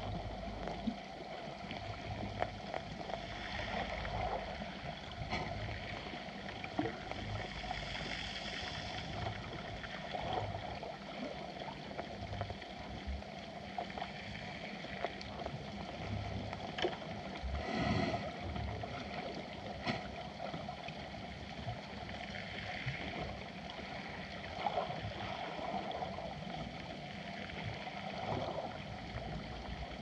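Underwater ambience at the sea bottom: a steady hiss and rush of water, broken by a handful of sharp clicks and cracks.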